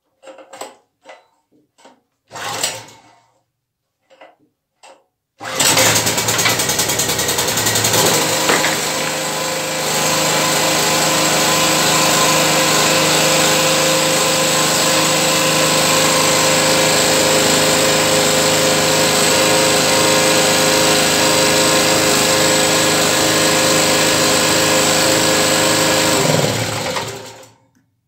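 Generator engine started on its key switch: a few clicks and a short burst of noise, then about five and a half seconds in the engine catches and runs steadily. Near the end it is switched off and runs down over about a second.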